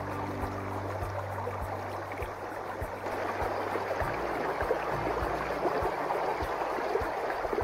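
Background music with a steady low beat, over a dense steady rushing hiss.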